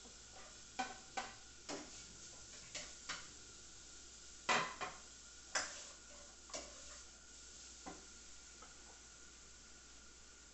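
Diced bacon tipped into a hot frying pan and stirred, with light sizzling. A dozen or so scattered clicks and knocks of the utensil and plate against the pan, the loudest about four and a half seconds in.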